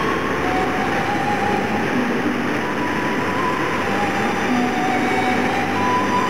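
Steady rush of a waterfall, with a soft melody of background music over it.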